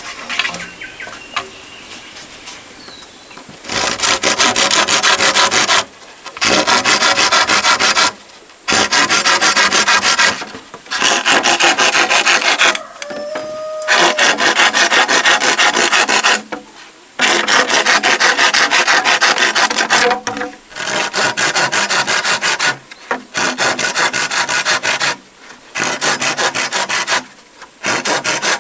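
Machete blade rasping in rapid back-and-forth strokes, in runs of about two seconds with short pauses between them. The first few seconds are quieter before the strokes start.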